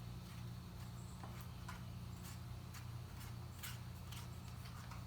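Glue slime being stirred as the activator is mixed in, with faint, irregular clicks and small sticky sounds over a steady low hum.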